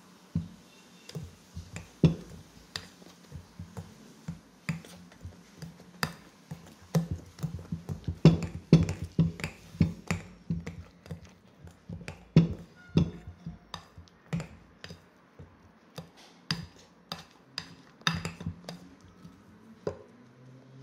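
Metal potato masher knocking and scraping against a glass mixing bowl as it mashes and blends a wet liver-and-almond mixture. It makes irregular clinks, often several a second, busiest in the middle.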